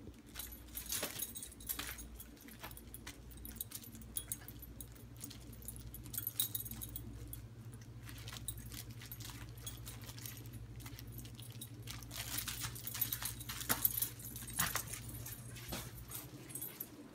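A small dog playing with a plush takeout-box toy, making bursts of light rattling and clicking about a second in, around six seconds, and over a longer stretch from about twelve to fifteen seconds. A steady low hum runs underneath.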